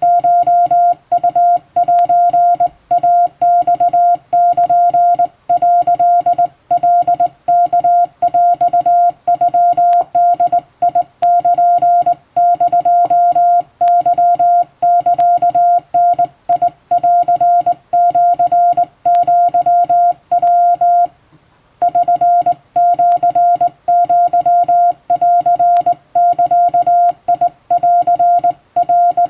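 Hand-keyed Japanese wabun Morse code: a steady tone of about 700 Hz keyed on and off in dots and dashes, with one pause of about a second two-thirds of the way in.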